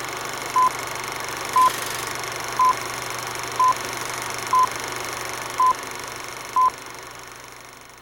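A countdown leader on videotape: seven short, identical beeps, one a second, over a steady tape hiss and hum that fades away near the end.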